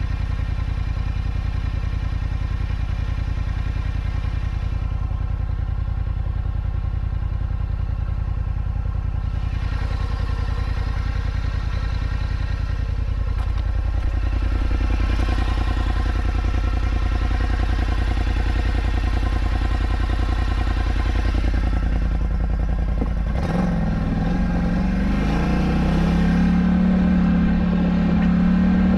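ATV engine idling steadily, then revving up and pulling away about three-quarters of the way through, getting louder toward the end.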